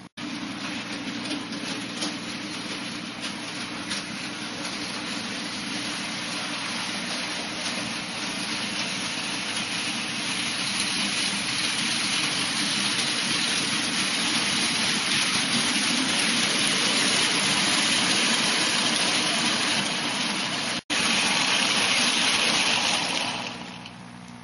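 Model steam locomotive and coal wagons running on the layout's track: a steady rushing rumble of motor and wheels on rail that grows louder as the train approaches and falls away shortly before the end, with two very brief dropouts.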